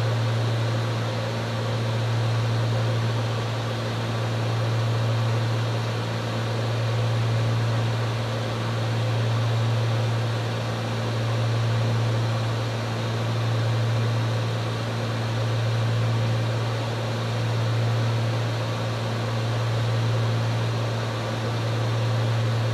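Cabin drone of a Cessna 310Q's two six-cylinder piston engines and propellers in cruise flight, a steady low hum under a broad rush of noise. The loudness swells and fades evenly about every two seconds: the beat of the two propellers turning at slightly different speeds, not quite synchronized.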